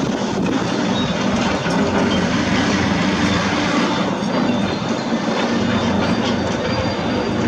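Heavy construction machinery at work: an excavator's diesel engine running with a steady drone, with a few faint knocks over it.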